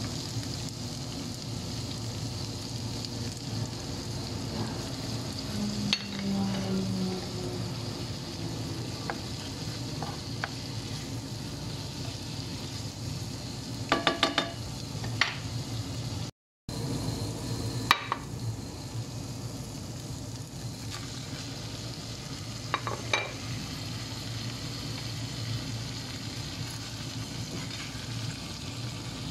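Sliced vegetables sizzling steadily as they stir-fry in a frying pan. A spatula clicks and scrapes against the pan a handful of times, in a quick cluster about halfway through and a few single taps later.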